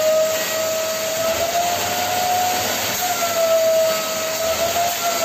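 Inexpensive construction-cleanup vacuum cleaner running at full suction: a loud, steady motor whine over rushing air hiss, its pitch wavering slightly about three seconds in.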